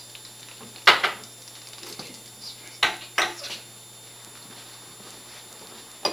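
Three sharp knocks or clatters of hard objects being handled: one about a second in, then two close together about three seconds in, over a faint steady electrical hum.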